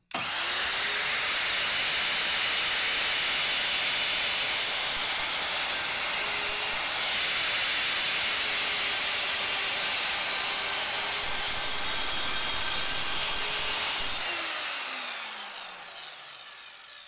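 Evolution R185SMS sliding mitre saw starting up and cutting through composite decking with its multi-material blade, running loud and steady for about fourteen seconds. The blade then spins down, its whine falling in pitch over a couple of seconds.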